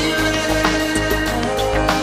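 Background music: a song track with drum hits, a steady bass and held instrument notes.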